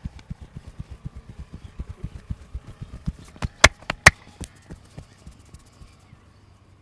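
Rapid rhythmic percussive hand-tapping of a head massage, about six dull slaps a second, fading out about five seconds in. Two sharp, loud cracks come about half a second apart near the middle.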